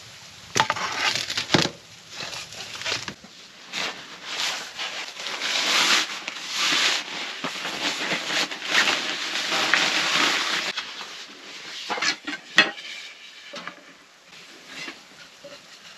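Rustling of a fabric carry bag as wooden folding-furniture parts are pulled out and handled, with sharp knocks and scrapes near the start and a few clacks of wooden pieces about three-quarters through.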